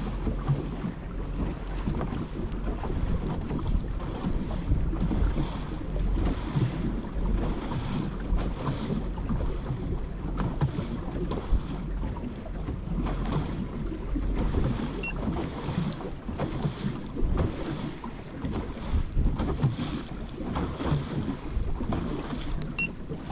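Wind buffeting the microphone in uneven gusts out on an open boat, a deep rumbling hiss that rises and falls.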